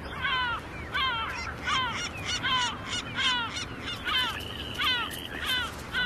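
Gulls calling over and over in a rapid series of short, harsh calls that fall in pitch, about two or three a second, with one longer level note about four seconds in. These are the agitated calls of gulls defending their nest and chicks from neighbouring gulls.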